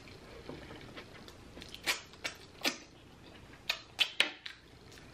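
A person eating seafood-boil food close to the microphone: soft wet chewing with sharp mouth smacks, a few about two seconds in and a quick cluster near four seconds as sauce is sucked off the fingers.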